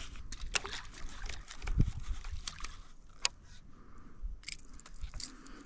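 Irregular small clicks and taps of fishing tackle and rods being handled aboard a plastic kayak, with a low thump near two seconds in and one sharper click a little after three seconds in.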